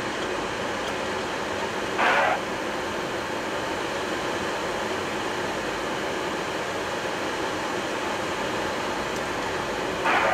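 Steady rush of airflow and air-conditioning noise in a Boeing 737-800 cockpit on final approach. Two short bursts of noise, about 2 s in and again near the end, come from the windshield wiper sweeping across the wet glass.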